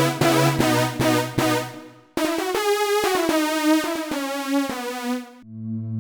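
Roland JD-800 software synthesizer playing its factory patches. A patch of evenly repeated notes over a bass line fades out about two seconds in, then a brighter patch plays a run of notes, and a low sustained chord starts near the end.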